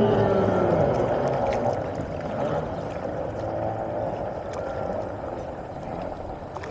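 Choppy water lapping and splashing at the edge of the boat-race course. Early on, a faint drone from distant boat engines falls in pitch and fades, and the sound slowly gets quieter.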